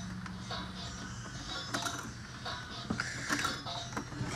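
Small plastic clicks and rattles, scattered and irregular, as a toy surprise capsule is handled and opened.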